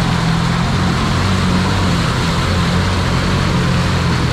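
Can-Am X mr ATV's V-twin engine running hard with its pitch wavering slightly, as the bogged-down quad spins its mud tires in deep mud and churns it up.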